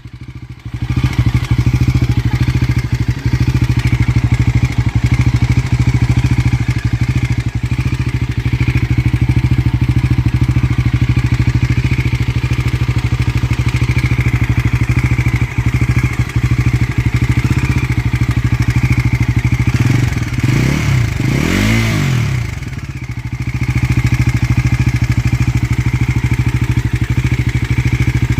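Bajaj Pulsar NS400Z single-cylinder engine idling with a steady tik-tik ticking, which the owner takes for an engine problem. About twenty seconds in, the engine is revved briefly, the revs rising and falling, before it settles back to idle.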